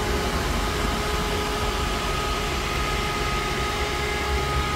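A parked car running: a steady mechanical hum and low rumble with several steady whining tones, plausibly the 1989 Marlin Roadster idling or its electric cooling fan.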